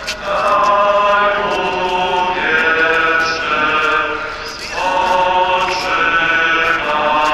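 Voices singing a slow funeral chant in long held notes, in about three phrases that each step to a new pitch.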